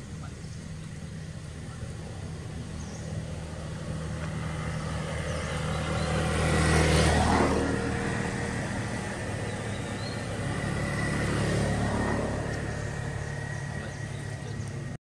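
Motor vehicles passing by: a low engine hum swells to a loud pass about halfway through, fades, then swells again a few seconds later.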